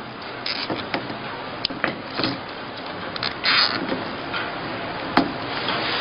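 Handling noise as a float switch's cable and its plastic counterweight are worked by hand and tied in place: irregular small clicks and rubbing, with a short scrape about three and a half seconds in and a sharp click about five seconds in.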